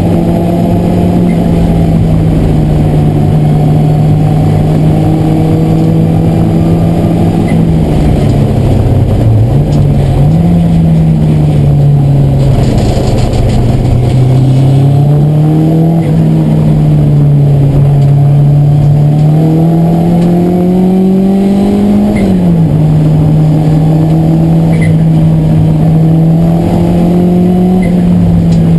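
Race car engine at speed on a circuit lap, heard from inside the cabin. Its pitch dips and recovers about nine seconds in, climbs slowly for several seconds after that, then drops sharply a little past twenty seconds in as the driver shifts gear or lifts off.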